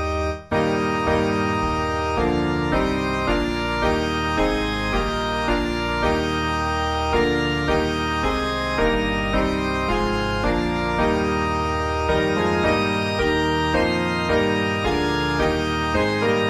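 Instrumental hymn accompaniment played on an organ in sustained, changing chords, with a short break about half a second in as the next verse begins.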